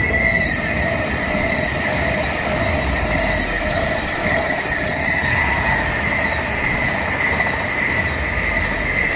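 High-speed electric trains passing at speed: a steady rushing noise of wheels on rails, with a steady high-pitched whine over it.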